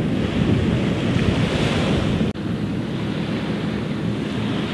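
Wind buffeting the microphone over small waves washing onto a sand beach, with the surf hiss swelling about a second in. The sound cuts out for an instant about two seconds in.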